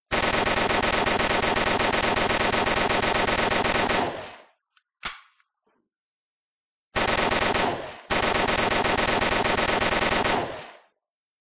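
MAT-49 submachine gun firing on full automatic: a long burst of about four seconds, a single sharp shot or clack about a second later, then another long burst of over three seconds with a momentary break about a second into it.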